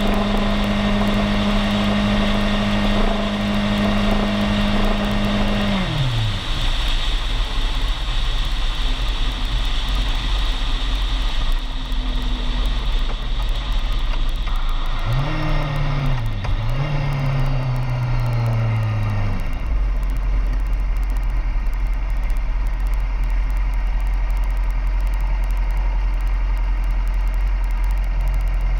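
A road vehicle's engine running at a steady cruise, dropping in pitch as it slows about six seconds in, briefly revving up and falling again around fifteen to nineteen seconds, then settling into a low steady idle while stopped at an intersection.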